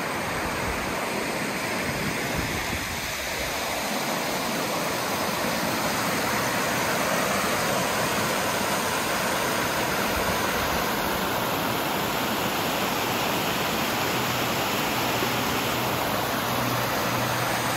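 Mountain creek water flowing, a steady even rush of running water. A faint low hum comes in under it about halfway through.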